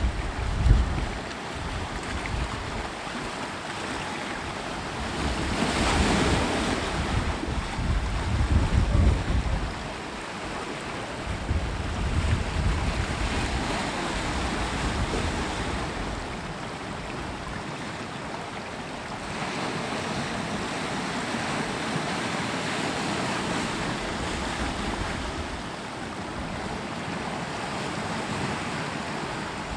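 Sea waves breaking and washing on the shore, with a swell about five seconds in that eases off by ten seconds and a smaller one a few seconds later. Gusts of wind buffet the microphone as low rumbles.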